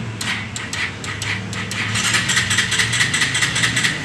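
A motorcycle's electric starter cranking the engine: a fast, whirring clatter that sets in about two seconds in. The starter now works because the starter relay's plug has been reconnected. A few scattered clicks come before it.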